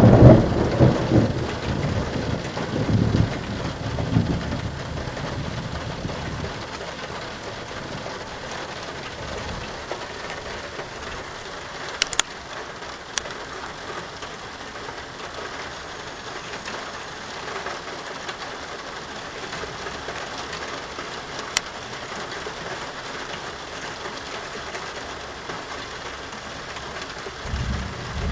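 Thunder rumbling and dying away over the first few seconds, then steady rain falling. A few sharp ticks come through the rain, and another roll of thunder begins near the end.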